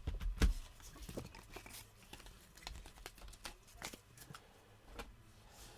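Trading cards being handled by hand: scattered light clicks, rustles and crinkles.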